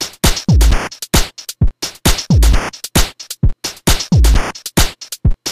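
Electronic drum-machine loop playing on repeat: sharp hits in a steady rhythm, with a deep kick falling in pitch three times. The pasted copies of the loop follow one another without a gap, so it plays on seamlessly.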